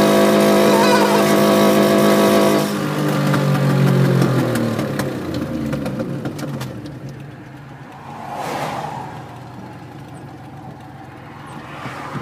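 Nissan Maxima's VG V6 engine running loud and steady at high revs, heard from inside the cabin. About three seconds in the throttle is released and the revs fall away, leaving quieter road and tyre noise, with a brief whoosh about eight seconds in.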